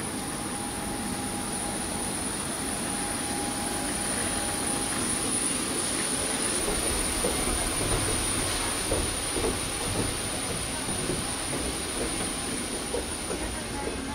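Steady rushing cabin noise of a parked airliner, its air conditioning running, with a few faint knocks and clatters.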